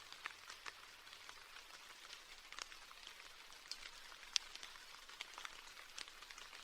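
Light rain falling, a faint steady patter with many individual drops ticking close by, one louder drop about four seconds in.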